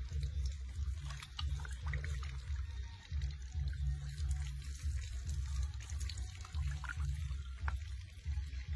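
Water poured from a metal bowl splashes over a baby monkey's head and trickles back into a basin of bathwater. A low, uneven rumble runs underneath.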